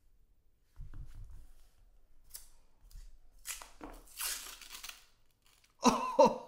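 Paper wrapper of a roll of half dollars being torn open, with rustling and crinkling after a few soft knocks of handling. A loud pitched sound starts near the end.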